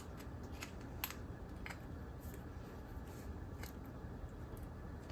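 Needle-nose pliers clicking and tapping against metal inside a cast-aluminum switchbox housing as they probe for a loose piece; faint, irregular clicks, the sharpest about a second in.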